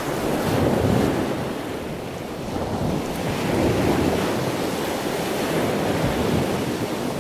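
A steady rushing noise that swells and eases slowly, with no voice or music in it.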